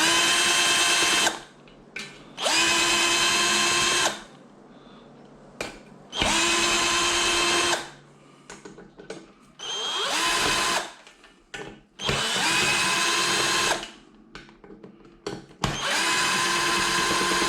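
Power drill running a 10 mm socket to back out the side-cover bolts of a Predator 212 engine: six runs of a second or two each, each spinning up quickly to a steady whine, with short pauses between bolts.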